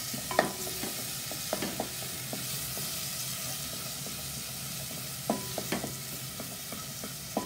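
Chopped onion, garlic, green chilli and tomato sizzling in hot oil in a nonstick pan while a wooden spatula stirs them, with a few light taps of the spatula against the pan. The tomato is frying down after the onions were sautéed.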